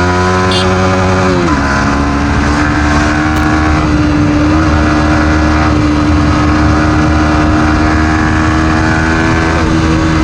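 Yamaha MT-15's single-cylinder engine pulling the bike along at speed. The engine note dips once about a second and a half in, as at a gear change, then holds and slowly climbs, over steady rushing noise.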